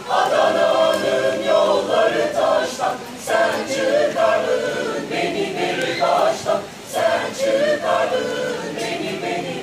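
Mixed choir of men and women singing polyphonic music a cappella, in several voice parts, with held notes and brief breaks between phrases about three and six and a half seconds in.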